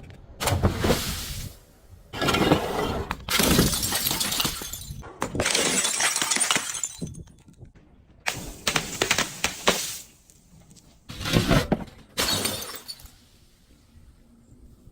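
Glass bottle being crushed, shattering and crunching in about seven separate bursts of breaking glass, with a quieter stretch near the end.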